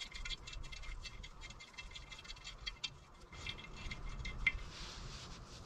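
Rapid light metallic ticking and rattling as a motorcycle exhaust-flange nut is spun off its stud by hand, loosened after being freed with pliers. The ticks are dense at first and thin out, with one sharper click about four and a half seconds in.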